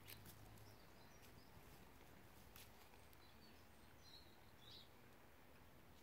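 Near silence: faint outdoor ambience with a few soft clicks and a couple of faint, high bird chirps about four to five seconds in.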